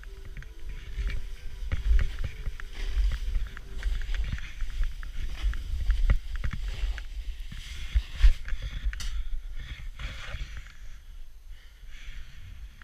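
Snowboard riding over snow, the board hissing and scraping with many short crackles, over heavy wind rumble on the GoPro's microphone. A couple of sharp knocks about eight seconds in.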